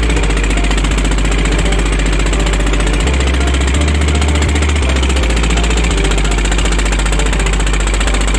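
A pompong motorboat's inboard engine running steadily, with a fast, even knocking beat over a loud low rumble.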